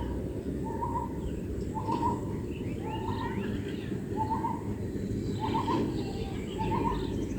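A bird repeats a short call about once a second, with fainter chirps from other birds, over a steady low background rumble.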